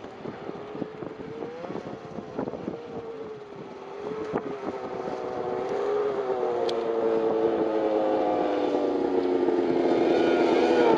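Snowmobile engine running under throttle, growing steadily louder as the sled comes closer, its pitch sliding down over the last few seconds.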